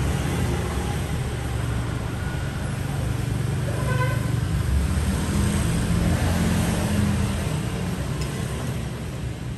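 Street traffic: motorbike and car engines running and passing in a steady low rumble, with a short pitched tone about four seconds in.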